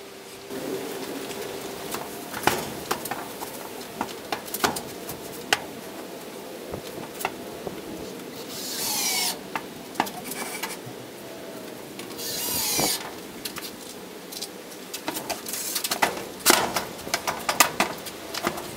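Large silver-faced panels being handled and pressed against a wooden frame: scattered knocks and taps with rubbing of the sheeting, two short rasping bursts about halfway through, and a quick run of taps near the end.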